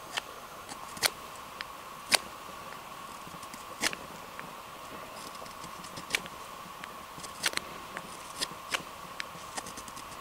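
Knife blade whittling a wooden stick, cutting off shavings in short, sharp, irregular scrapes, about a dozen or more, over a steady background hiss.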